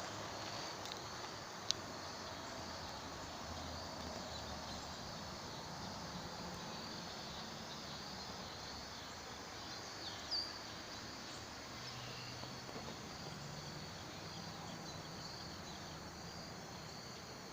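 Insects chirring steadily in a continuous high-pitched drone, with a faint outdoor background and one or two small ticks.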